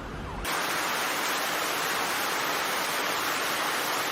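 Steady, even rush of water from the storm flooding, heavy rain or flowing floodwater, cutting in suddenly about half a second in.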